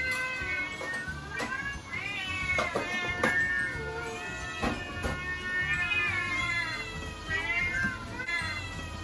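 Several house cats meowing over and over, their rising-and-falling calls overlapping one another without a break, begging for food at the kitchen counter.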